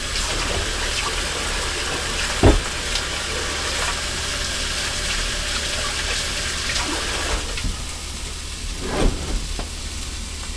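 Kitchen tap running into a sink as hands are washed, over the steady sizzle of burger patties frying in a cast iron skillet; the water stops a few seconds before the end. Two sharp knocks, the first about two and a half seconds in.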